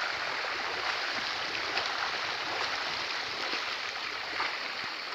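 Floodwater from an overflowing river rushing steadily, a constant churning hiss.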